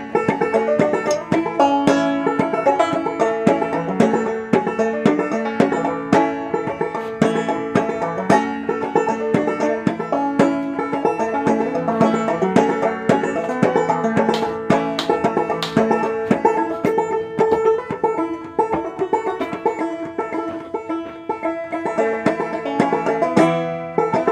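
Background music: a fast tune of quickly plucked string notes.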